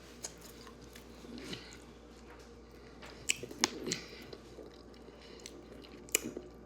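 Close-up chewing of chicken wings, soft and wet, with a few sharp mouth clicks about halfway through and again near the end.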